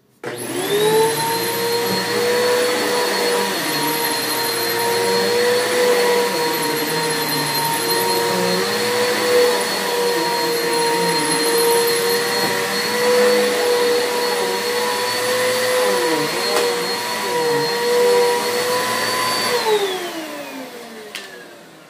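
Bissell 6583 vacuum cleaner switched on, its motor whining up to speed within a second and running steadily on carpet. Near the end it is switched off and the whine falls away as the motor spins down.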